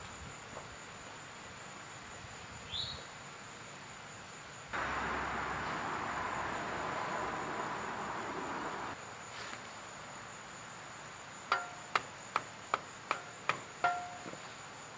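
A hiss lasting about four seconds, then seven quick sharp clinks, each ringing briefly, from hand work with tools during a motorcycle oil change; a faint steady high whine underneath.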